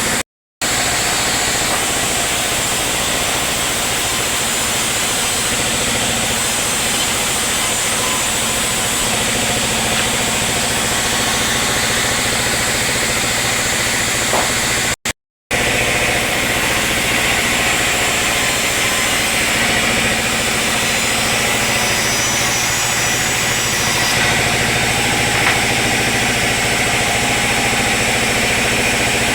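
Sawmill machinery running steadily. The sound drops out twice: briefly just under a second in, and again about halfway through.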